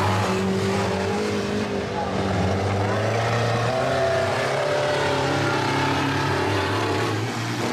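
Banger-racing vans' engines running on the track, a steady low engine drone with some wavering revs.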